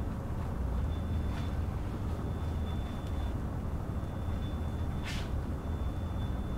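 Steady low rumble and hiss of room noise with a faint steady high whine. There is a brief scratch of a marker on the whiteboard about a second and a half in, and a louder one about five seconds in.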